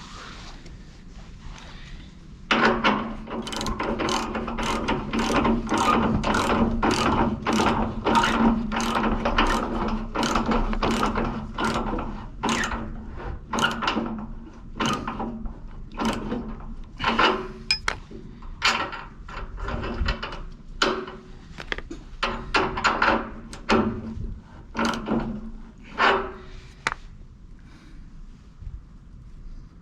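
Tool working a tight threaded valve onto a pipe fitting: repeated metallic ratcheting strokes, about one or two a second, over a steady low hum in the first half, tailing off near the end.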